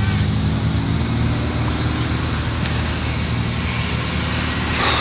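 Steady low motor hum with outdoor noise over it, and one sharp thump near the end.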